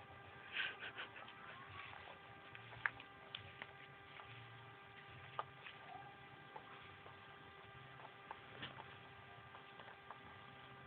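Faint, irregular crunching clicks of a cat and a rabbit chewing dry kibble, over a steady electrical hum.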